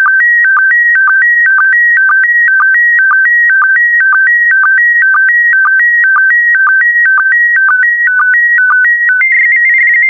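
PD120 slow-scan TV (SSTV) image signal: a loud electronic tone warbling between two pitches in a steady pattern about twice a second, each step marked by a short lower blip (the line sync pulses). About nine seconds in it moves higher and becomes a faster warble as the last lines of the picture are sent, then cuts off suddenly at the end of the transmission.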